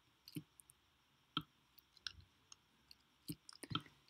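Faint, irregular clicking of a computer mouse as a graph view is zoomed and dragged on screen, about a dozen sharp clicks at uneven intervals.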